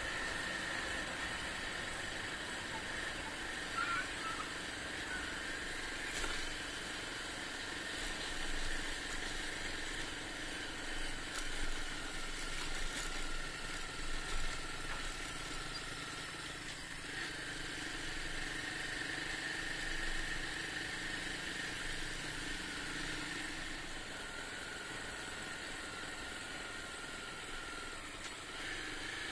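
Honda XR250 single-cylinder motorcycle engine running under way, its note wavering gently up and down, with a steady high whine over it.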